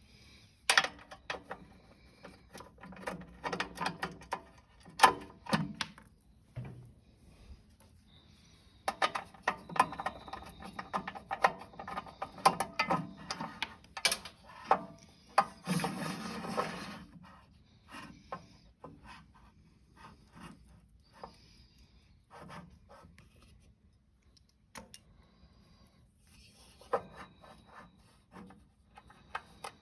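Hand-tool work on a small engine's pull-starter housing: irregular clicks, clinks and scraping of metal parts and tools being handled, busiest about a third of the way in and sparser toward the end.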